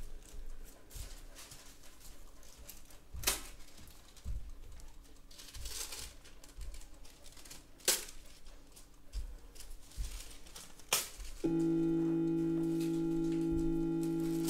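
Sound-design music: scattered crackles, sharp clicks and soft low knocks over a faint bed, then about three-quarters of the way in a steady held chord sets in and sustains.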